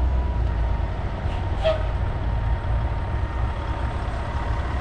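Slow-moving parade vehicles, a heavy water-tank truck and a classic car, running with a steady low engine rumble.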